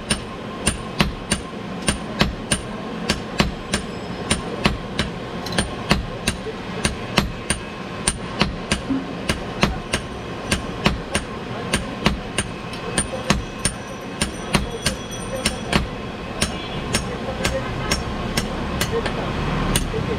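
Blacksmith's hand hammer and striker's sledgehammer taking turns on red-hot steel on an anvil, ringing blows at about three a second. In the last few seconds the sledgehammer stops and only the lighter hammer keeps striking.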